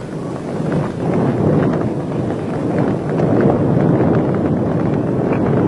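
A large bonfire of pine branches roaring, with many sharp crackles and pops; it sets in abruptly and swells over the first second.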